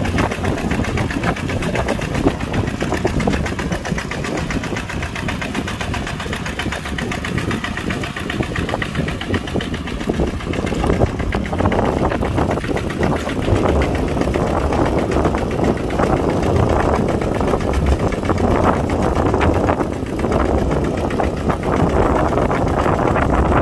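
Kubota tractor's diesel engine running steadily, growing louder from about halfway through.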